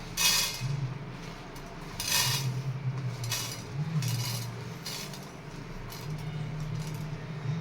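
A metal spoon clinking and scraping in a cooking pan, about six short strokes, as whole spices are stirred for dry-roasting the masala. A low hum runs underneath.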